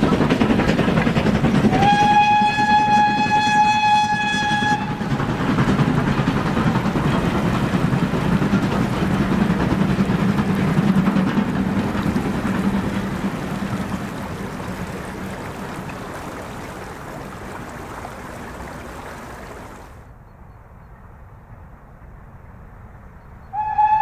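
Steam locomotive hauling a passenger train past, running steadily, with one long whistle blast of about three seconds beginning about two seconds in. The sound of the train fades as it draws away, and near the end another steam whistle blast starts abruptly.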